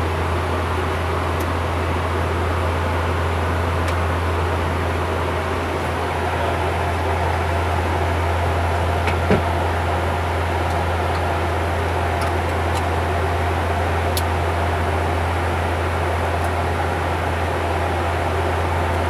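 Bombardier Q400 turboprop airliner in cruise, heard from the cockpit: the propellers and engines give a steady deep drone under a constant rush of airflow. A single light knock about nine seconds in.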